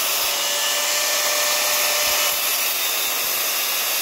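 Power tool running steadily as it cuts notches into the end of a steel exhaust tube.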